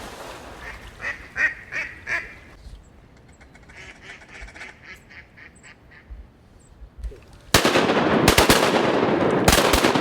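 Ducks quacking, a quick run of calls and then softer ones, followed about three-quarters of the way in by a volley of about half a dozen shotgun blasts in quick succession from several hunters shooting at the incoming ducks.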